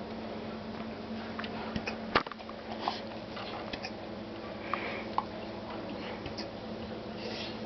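Leonberger puppy hiccuping: short sharp hiccups at uneven intervals, the loudest about two seconds in, over a steady low hum.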